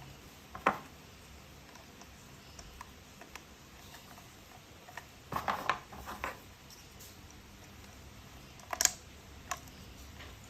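Plastic toy train parts being handled and fitted together: scattered sharp clicks and taps, with a quick cluster about halfway through and two more near the end.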